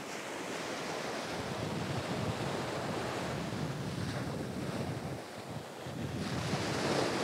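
Rough ocean surf breaking and washing up a sandy beach, with wind buffeting the microphone. The wash eases briefly a little past halfway and builds again near the end.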